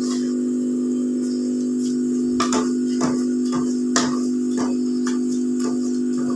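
Spoon pressing fenugreek greens down in an aluminium pot, knocking against the pot in short clicks about twice a second from about two seconds in, over a steady low hum.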